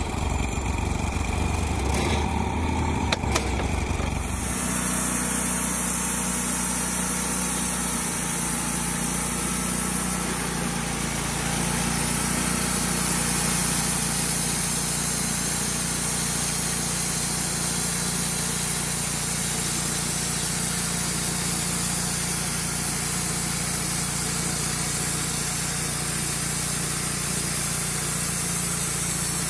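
Wood-Mizer LT35HD portable bandsaw mill's engine running, with a couple of clicks. About four seconds in, the sound changes to a steadier, higher run with a hiss and holds there, as the engine is throttled up to drive the band blade.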